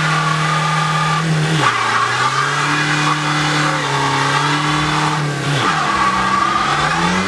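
Car engine pulling at steady revs, with the pitch dropping twice, about a second and a half in and again near five and a half seconds, as if at gear changes, then climbing again near the end.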